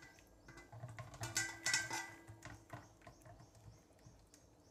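Fingers patting and pressing oily jowar thalipith dough flat in an aluminium pan: a run of soft wet slaps, loudest in the first two seconds, then fading.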